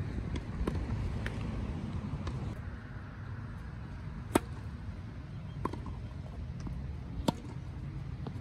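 Tennis balls struck by rackets in a rally: a sharp serve hit about four seconds in, a fainter return about a second later and another sharp hit near the end. Under them runs a low, steady outdoor rumble.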